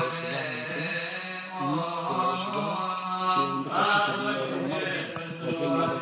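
Men's voices chanting a Coptic Orthodox funeral hymn: a winding sung melody over a steady low note held beneath it.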